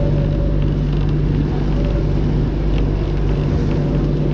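A boat's motor running at a steady hum while churning water rushes past the hull.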